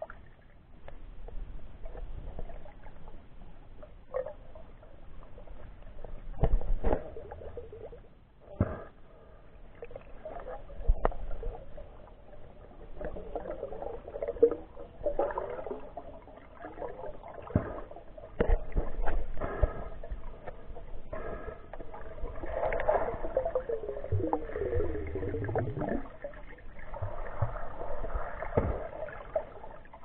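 Muffled water sloshing and irregular knocks heard through an action camera's waterproof case held underwater, with a tone sliding downward about three-quarters of the way in.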